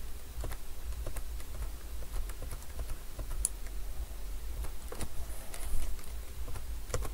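Irregular, scattered clicks of a computer mouse and keyboard being worked at a desk, over a low steady hum.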